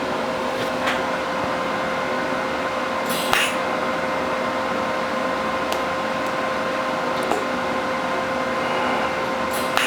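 Steady workshop machine hum over a hiss, with a few faint clicks.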